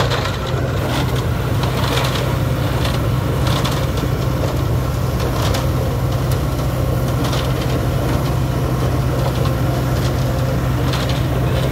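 Homemade concrete mixer built from a công nông (Vietnamese horizontal-engine farm truck) running, its single-cylinder diesel engine giving a steady low drone. Frequent sharp clatters and crunches sound over it.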